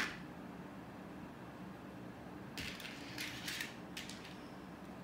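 Small Lego pieces clicking and rattling against a plastic tray as they are picked out by hand: a sharp click right at the start, then a few short clusters of clicks from about two and a half to four seconds in.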